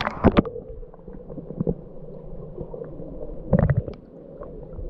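Water sloshing and splashing close to the microphone, with sharp knocks right at the start and a louder cluster of them about three and a half seconds in.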